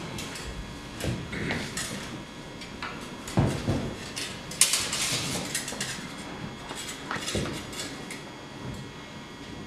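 Steel rapier and dagger blades clashing in several sharp clinks and scrapes, with a deeper thump a little past a third of the way in.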